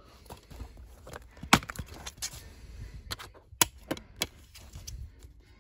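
Plastic DVD case being handled and opened: a series of sharp clicks and taps, the loudest about one and a half seconds in and again past three and a half seconds, with soft handling rustle between them.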